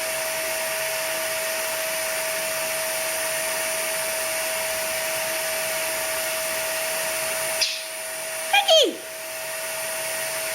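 Steady whirring of an electric motor appliance with a constant hum. It dips briefly about eight seconds in, when a short, loud squawk from the Eclectus parrot sweeps sharply down in pitch.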